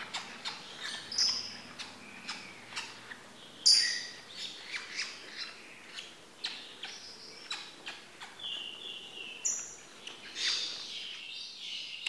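Young lovebirds chirping and squawking: many short, high calls in quick, irregular succession. A louder shriek comes about four seconds in.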